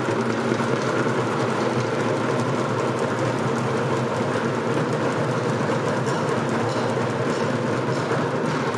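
Bucket drums played together by a group in a dense, continuous roll.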